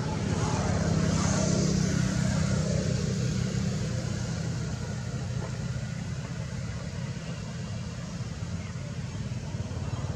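Low engine rumble of a motor vehicle passing, growing louder over the first couple of seconds and then slowly fading.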